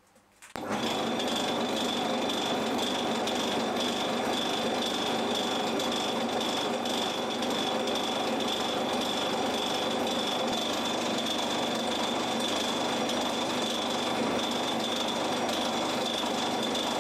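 A small metalworking lathe starts about half a second in and then runs steadily with a constant high whine. A centre drill and then a twist drill in the tailstock bore into the end of a steel part spinning in a four-jaw chuck.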